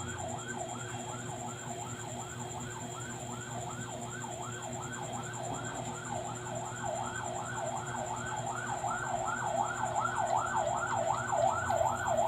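A siren sounding in a fast rising-and-falling yelp, about three to four sweeps a second, growing louder toward the end.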